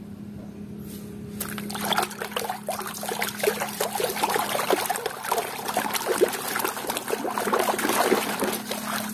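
Water sloshing and splashing in a plastic basin as a hand scrubs a muddy plastic toy underwater. It starts about a second and a half in and goes on in quick, irregular splashes.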